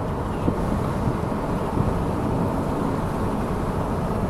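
Steady low rumble of a car heard from inside the cabin, with no distinct events.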